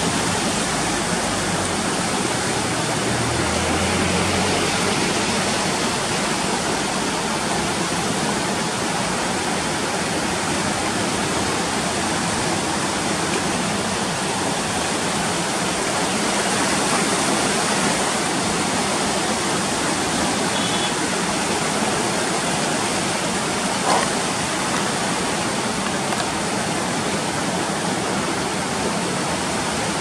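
The Sapta Koshi River in flood at danger level, its silt-laden water rushing and churning past the barrage piers in a steady, loud rush. One brief knock about 24 seconds in.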